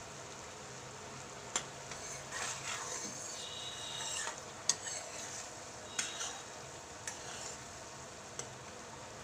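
A spoon stirring and scraping through boiling sugar syrup (chashni) in a non-stick kadhai, with a short squeak and a handful of sharp clicks as it knocks against the pan. Under it runs the steady bubbling hiss of the syrup.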